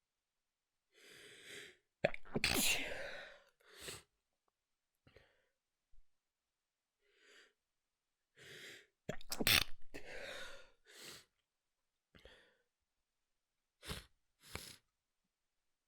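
A person sneezing twice while trying to keep the sneezes quiet. Each sneeze follows a gasping in-breath, the first comes about two seconds in and the second, louder one about nine seconds in, and a few short breaths follow near the end.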